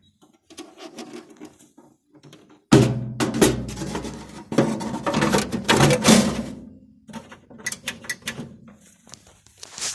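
Handling noise from the dehumidifier being worked on: a loud thump about three seconds in starts a few seconds of knocking and rattling, then scattered clicks and taps.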